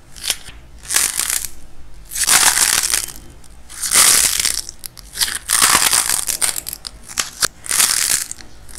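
Dried clay coating cracking and crunching as hands squeeze a soft orange-shaped ball covered in painted clay. It comes in about six loud crackly bursts, one every second or so, with sharp little snaps between them.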